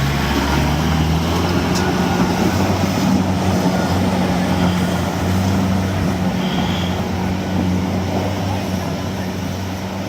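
Motor vehicle engine running steadily at a constant pitch, with continuous noise.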